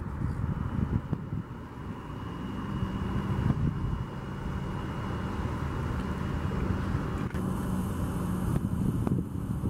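Distant Sounder commuter train running along the line: a low rumble with a steady low hum through the middle.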